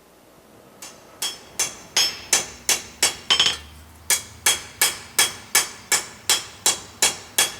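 Blacksmith's hammer striking steel on an anvil, a steady run of blows about three a second, each with a short metallic ring, starting about a second in with a brief pause midway, as the forged steel is shaped.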